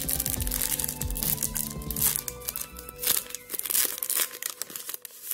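Foil wrapper of a Pokémon trading-card booster pack crinkling and tearing as it is pulled open by hand, over background music.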